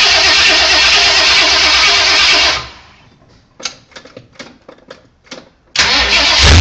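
Small-block V8 with freshly fitted headers running loud, then cutting off abruptly about two and a half seconds in. A string of light sharp clicks follows in the quiet, and a loud sound comes back just before the end.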